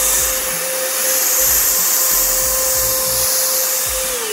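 Handheld snow machine running: the fan motor's steady whine over loud rushing air as it blows snow-fluid foam out of its nozzle. Near the end the button is released and the whine falls in pitch as the motor spins down.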